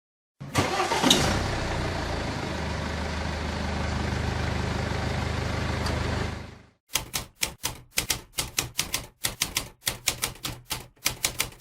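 A car engine starts with a sharp burst and runs steadily for about six seconds before fading out. It is followed by a quick run of about twenty short bursts, each cut off sharply.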